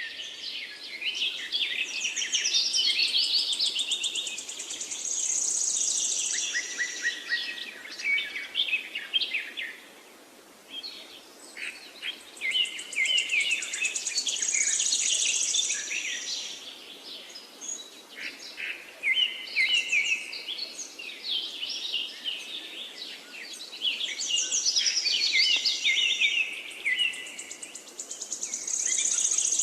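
Songbirds chirping and trilling in quick high phrases, coming in bouts that return about every ten seconds.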